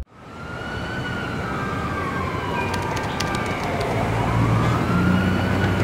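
A slow siren-like wail that falls and then rises once, over a steady rushing noise that fades in from silence. A low hum joins it about two thirds of the way through.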